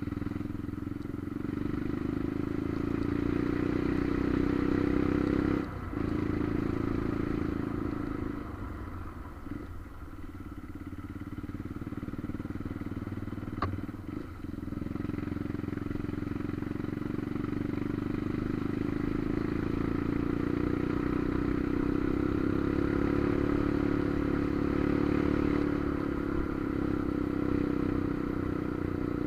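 Motorcycle engine running steadily under way, easing off briefly about six seconds in and again for a few seconds around ten seconds in before picking back up. A single sharp click near the middle.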